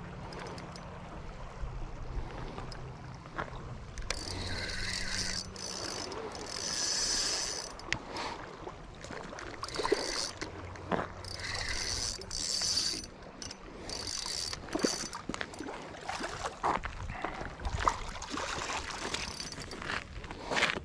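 Spinning reel being cranked in spurts, its gears whirring, as line is wound in on a hooked striped bass. Scattered knocks and clicks of handling between the spurts.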